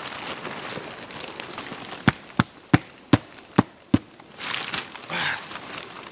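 Six sharp taps about a third of a second apart, followed by the rustling of fabric clothing as a hood is pulled up.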